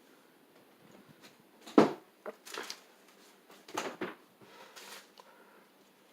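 Several short knocks and rustles, the sharpest and loudest about two seconds in and another cluster around four seconds, over a faint steady background hum.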